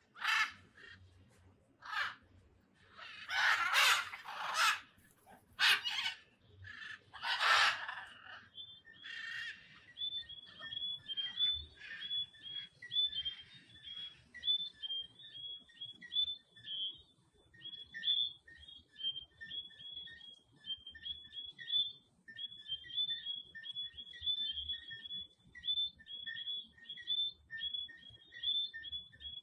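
Macaws squawking loudly in a handful of harsh calls for the first eight seconds or so, then a chorus of small frogs calling, a dense run of short two-pitched whistles repeating many times a second.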